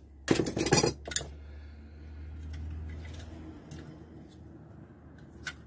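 Tin snips cutting through thin tin-can sheet metal: a short, loud run of crunching snips about half a second long near the start, followed by a few light clicks and clinks of the cut tin strip being handled on a wooden workbench.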